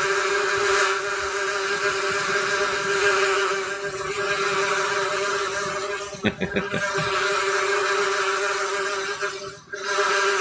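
Steady, loud buzzing of a swarm of bees, a sound effect played for the team called the Swarm. It dips briefly about six seconds in, with a few soft knocks, and again just before the end.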